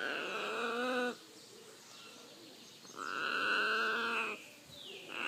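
Red macaw giving long, drawn-out harsh calls: one at the start, a second about three seconds in, and a third beginning near the end.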